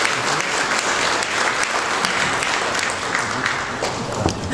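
Audience applauding, a dense patter of many hands clapping that thins a little near the end.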